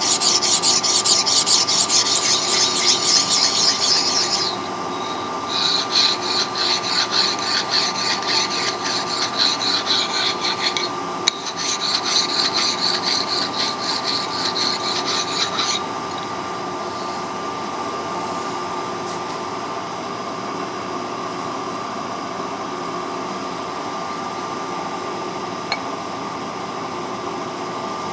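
Hand file stroked rapidly back and forth along the edge of a cast iron bar, in three runs with short breaks, stopping about halfway through. A steady machine hum runs underneath.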